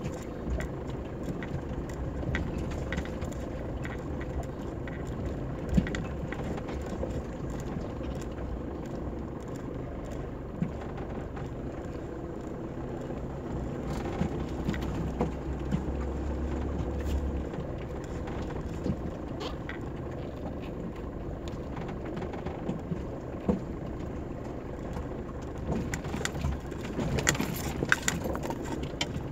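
Mitsubishi Pajero Mk2 driving over a rough, rocky dirt track, heard from inside the cabin: the engine's steady low drone with frequent clicks and rattles as the vehicle bumps along.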